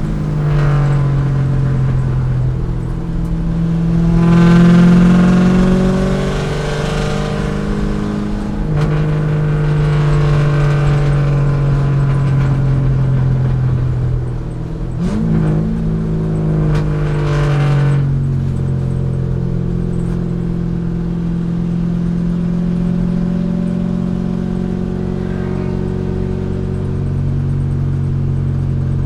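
C5 Corvette's V8 engine under race load, rising in pitch and dropping back as it is shifted, with a brief lift about halfway through, then running at a steady pitch.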